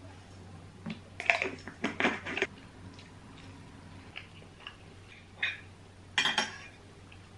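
A metal spoon clinking and scraping against a ceramic plate, in short clusters of sharp clinks about a second in and again, louder, near the end, with a few lighter taps in between.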